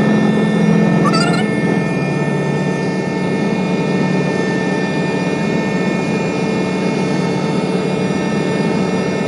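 Aircraft cabin noise: the engines give a loud, steady drone, with several steady high whines over a low hum.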